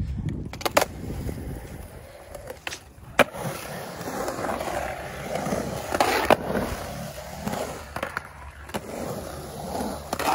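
Skateboard wheels rolling and carving on the concrete of a skate bowl, a steady rolling rumble broken by several sharp clacks of the board. The loudest clack comes about three seconds in.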